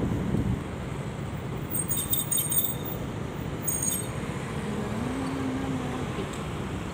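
Night street traffic heard from a scooter stopped at a red light: steady engine and tyre noise of scooters and cars passing through the intersection. Wind noise on the microphone fades in the first half second. A few brief high-pitched chirps come around two and four seconds in, and a passing engine's hum rises in pitch near five seconds.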